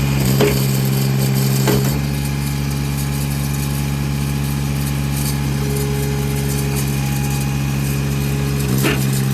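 Diesel engine of an Eastonmade 37D log splitter running steadily at about 2,800 RPM, working under the load of the hydraulic ram. Short sharp knocks come about half a second in, just before two seconds and again near the end, and the sound eases a little about two seconds in.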